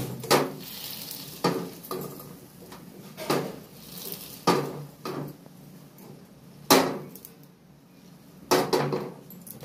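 A metal kadhai knocking and scraping against the gas stove's pan support as it is shifted about on the burner: about eight separate clanks at irregular intervals, each with a short ring.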